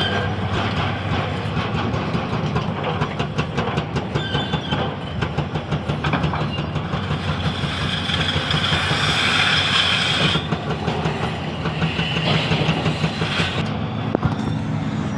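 Excavator working: its diesel engine drones steadily under a dense, rapid metallic clatter, and a hiss builds for a couple of seconds before cutting off sharply about ten seconds in.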